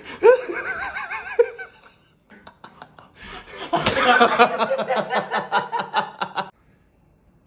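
Hard laughter: wavering, squealing laughs for about two seconds, then after a short pause a long run of rapid, pulsing laughter that stops sharply near the end, with a sudden sharp sound about four seconds in.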